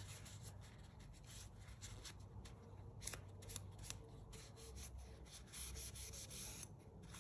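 Faint rubbing and handling noises with scattered soft ticks, over a low steady hum.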